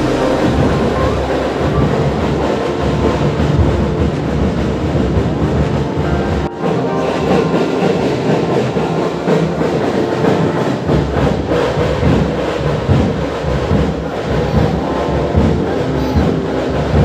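Background music with a dense, busy texture, briefly dipping about six and a half seconds in.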